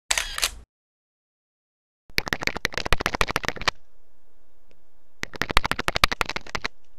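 Rapid mechanical clicking as a sound effect: a short burst at the start, then two runs of dense clicks, each lasting about a second and a half, with a faint steady hum between them.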